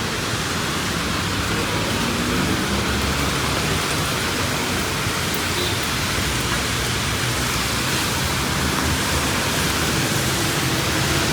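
Steady rainfall hiss mixed with the low rumble of passing street traffic.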